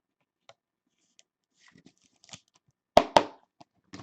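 Trading cards being handled on a table: light rustling and small clicks, then two sharp, loud clacks a fraction of a second apart about three seconds in, and a softer click at the end.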